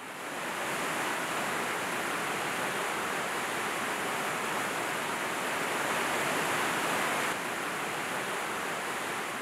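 Flowing water of a stream rushing steadily.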